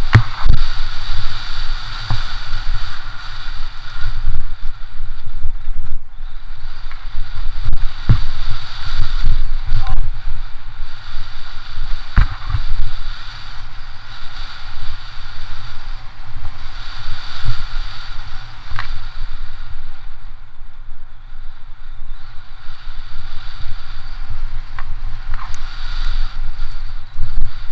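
2015 Intense Tracer 275A mountain bike descending a dirt singletrack: steady wind rumble on the microphone and tyre hiss, broken by many sharp knocks and rattles as the bike goes over bumps.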